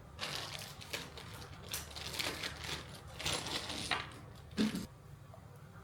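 Chess pieces clattering and rattling as they are handled and set down, in several short bursts with a sharper knock near the end.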